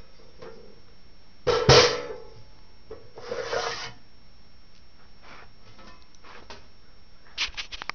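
Handling noise: a loud knock with a short clatter, then a scraping rub lasting under a second, and a few light clicks near the end.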